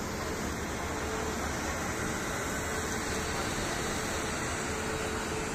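Steady, even hum and rush of an Indian Railways passenger train's sleeper coaches beside the platform, with a faint held tone and no sudden sounds.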